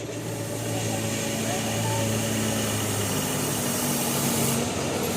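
Large vehicle's engine running with a low hum that steps between a few pitches, over a steady noisy background, with faint voices.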